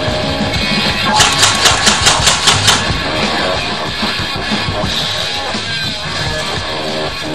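Rock music with drum kit and guitar, with a quick run of drum hits about a second in.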